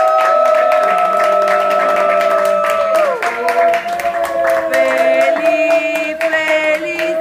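A group of people singing a birthday song together while clapping their hands. A long held note slides down about three seconds in, and more sung notes follow.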